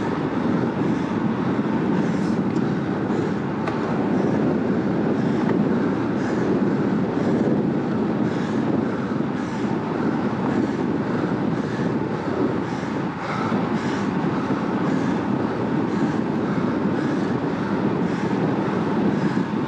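Road bike ridden hard at about 40 km/h: steady wind rush over the bike-mounted microphone mixed with tyre noise on asphalt, with a faint hiss repeating about every two-thirds of a second.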